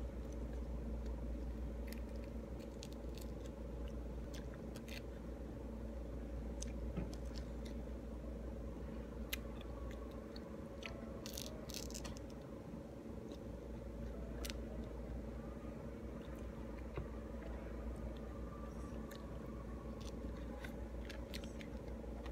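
Pomelo segments being peeled and eaten: scattered small clicks and crackles of the membrane tearing and of biting and chewing, over a steady low hum.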